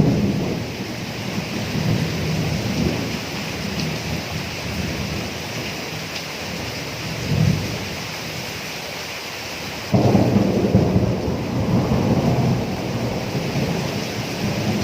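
Thunderstorm: steady rain with thunder rumbling on and off, swelling around seven seconds in and growing suddenly louder about ten seconds in.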